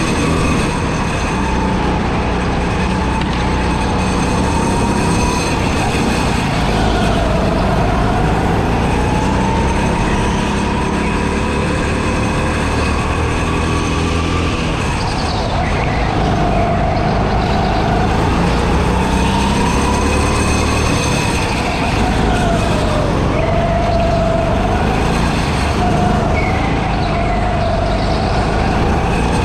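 Go-kart motor heard on board while driving laps, its pitch climbing and dropping over and over as the kart speeds up and slows for corners, over a steady noisy drone.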